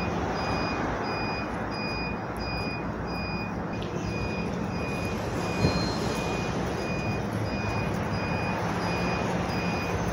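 A truck's back-up alarm beeping steadily about twice a second over a steady engine rumble, with a single knock a little past halfway.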